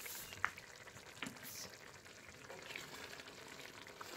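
Pastilla chicken sauce bubbling steadily in a stainless steel pot as it reduces to drive off its water. A wooden spoon stirs it, knocking lightly against the pot twice in the first second or so.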